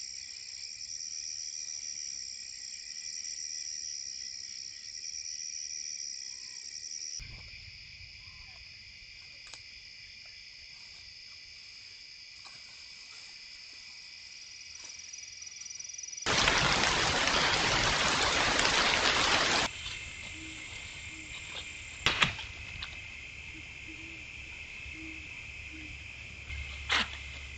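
A steady chorus of night insects trilling high, with an owl hooting in short, low, repeated notes in the later part. A loud burst of rushing hiss lasts about three seconds in the middle, and a couple of sharp clicks come near the end.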